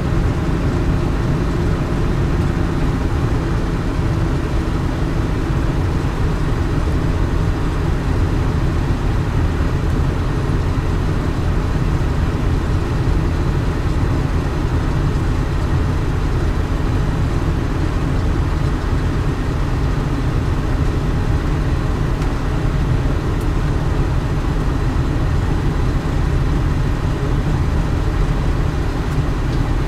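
Hitachi 350H hydraulic excavator's diesel engine running steadily under load as it digs and loads sand into a dump truck, a low rumble with no breaks.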